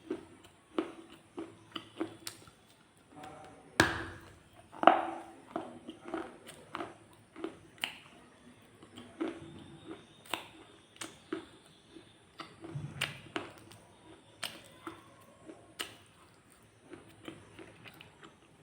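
Red shale being bitten and chewed: a run of sharp, irregular crunches, one or two a second, the loudest two about four and five seconds in.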